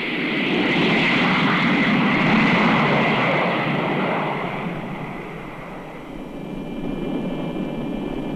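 Jet roar of a B-52 bomber's engines as it takes off and climbs away. The roar swells over the first few seconds, then fades and picks up again near the end.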